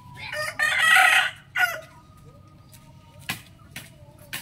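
A rooster crowing once, a loud call of about a second near the start with a short break near its end. A few brief sharp clicks follow later.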